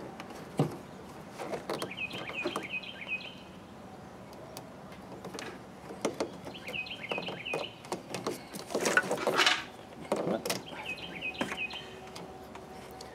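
A songbird repeats a short phrase of quick, wavering high notes about every four to five seconds. Hands working in the truck's engine bay make scattered clicks and rattles, with a louder rustling clatter about nine seconds in.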